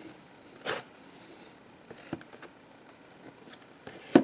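Plastic VHS clamshell case being handled and turned by hand: a soft rustle, a few light clicks, and a sharper knock near the end as the case is set back down on the table.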